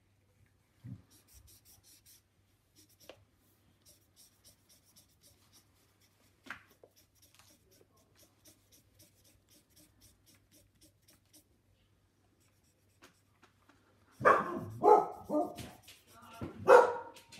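Felt-tip marker scratching on paper in quick, light, repeated strokes as a large area is coloured in. Near the end a dog barks several times, much louder than the marker.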